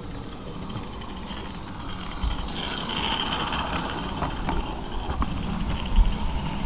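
A 16mm-scale live-steam garden railway train running past on its track, with a steady hiss that swells about three seconds in and a few light clicks from the wheels, over a low uneven rumble.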